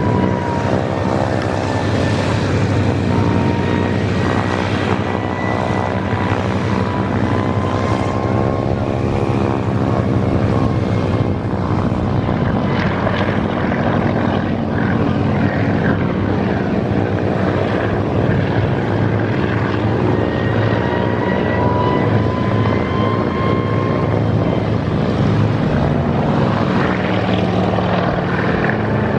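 Kamov Ka-26 coaxial-rotor helicopter in display flight, its two radial piston engines and twin rotors running loud and steady. The engine tone rises and falls as the helicopter turns and passes.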